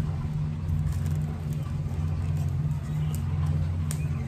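A steady low mechanical hum, as of a running engine or motor, with a couple of faint clicks.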